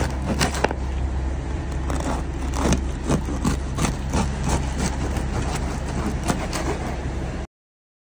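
Serrated bread knife sawing through a crusty loaf: a quick, uneven series of short scraping, crunching strokes over a steady low hum.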